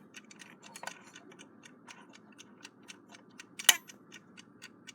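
Westclox Big Ben Chime Alarm clock movement ticking steadily as it runs, about four to five ticks a second. One sharper, louder click about three and a half seconds in.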